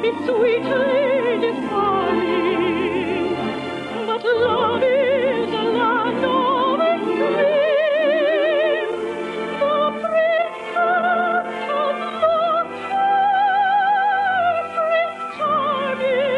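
A soprano singing a slow, sentimental operetta song in full operatic style, with a wide vibrato and several long held notes, over soft orchestral accompaniment. The sound is a dull, narrow-band 1951 radio broadcast recording.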